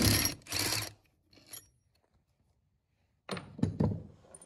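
Ratchet driving an Allen-bit socket, clicking through two quick strokes as it backs out an Allen-head bolt, then a few sharp metal clinks a little over three seconds in.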